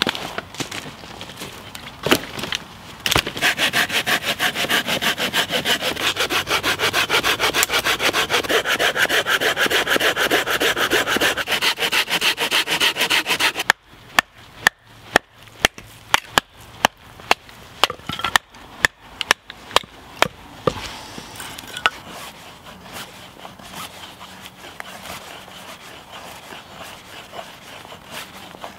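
A hand saw cutting through wood with fast, even strokes, stopping about 14 seconds in. Then a knife is batoned through a stick to split it, with sharp knocks about two a second for several seconds, followed by quieter scraping as the knife carves feather sticks.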